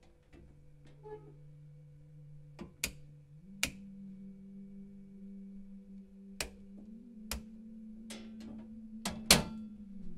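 Circuit breakers in a household breaker panel being flipped by hand: a string of sharp, irregularly spaced clicks, the loudest near the end. Under them runs a low steady droning tone that steps up in pitch about three seconds in.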